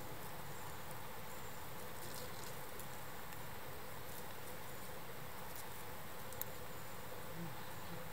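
Quiet outdoor background hiss, steady throughout, with a few faint scattered ticks and crackles.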